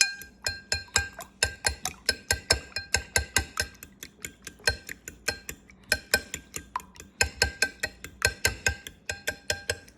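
A fork beating eggs in a bowl, clinking against the bowl in a quick, steady rhythm of about four to five strokes a second, each stroke ringing briefly. There is a short break about four seconds in.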